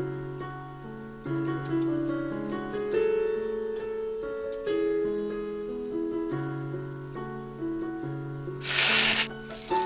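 Background instrumental music with a keyboard melody of held notes. Near the end comes a loud burst of hiss lasting under a second.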